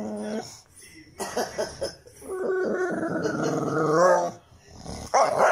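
English bulldog vocalizing in drawn-out, pitched moans: one tails off about half a second in, a few short ones follow, then a long moan that rises at its end, and a brief loud one near the end. The dog is complaining to have a dropped toy fetched for it.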